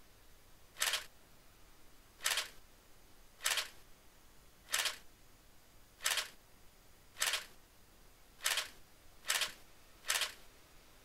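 SLR camera shutter firing single frames: nine sharp clicks at roughly one-second intervals.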